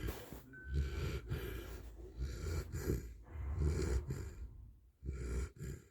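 Snoring: a run of rasping snores, about one a second.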